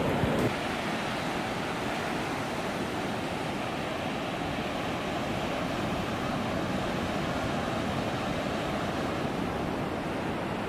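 Ocean surf breaking on a sandy beach: a steady wash of waves, a little louder for the first half second.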